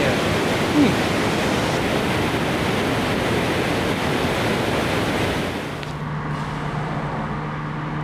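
Steady rush of a waterfall on the Passaic River. About five and a half seconds in, it gives way to a quieter, steady low hum of a car on the move.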